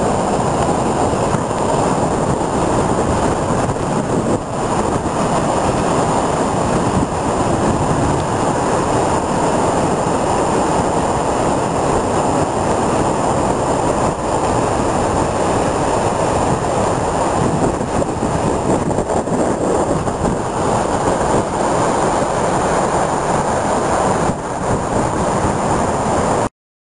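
Heavy surf from a rough sea, waves breaking and washing up the shore in a loud, steady roar that cuts off suddenly near the end.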